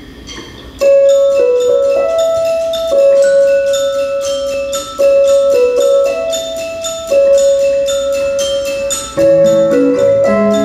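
Live band starting a song: after a quiet moment, music begins about a second in with held melody notes over a fast, even pattern of high notes, and lower bass notes join near the end.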